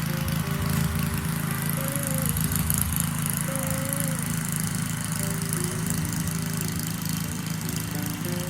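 Small gasoline engine running steadily, with background music playing over it.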